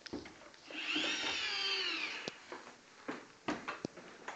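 A single drawn-out whining call that rises and then falls in pitch over about a second and a half, followed by a few light knocks.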